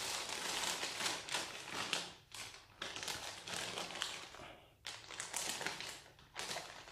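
Clear plastic bag crinkling and rustling as a bundle of wiring harness cables and connectors is stuffed back into it, handled in spells with three short pauses.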